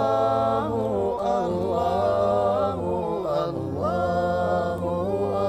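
Men singing an a cappella nasheed chant in layered voice parts: a low sustained bass under higher harmony lines. The notes are held long and glide from pitch to pitch.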